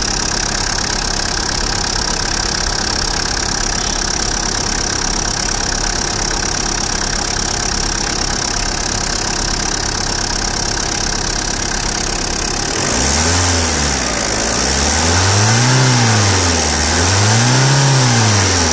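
2008 Tata Indigo CS four-cylinder diesel engine idling steadily, then, about two-thirds of the way through, revved by hand at the injection pump three times, each rev rising and falling back toward idle.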